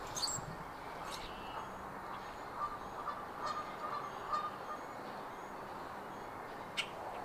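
Geese honking several times over a steady background hiss, with faint high bird chirps in between.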